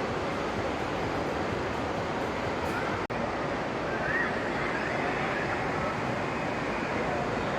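Steady rushing ambience of a large indoor tropical rainforest hall, like water or distant crowd noise, with a few faint bird chirps about four seconds in. The sound breaks off for an instant about three seconds in.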